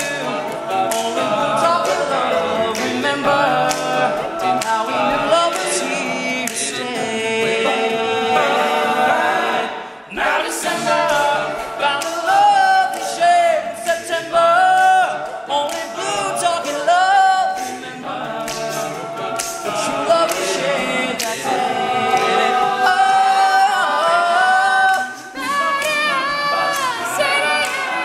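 All-male a cappella group singing in close harmony, with sharp percussive ticks running through the song. There is a brief drop in the sound about ten seconds in.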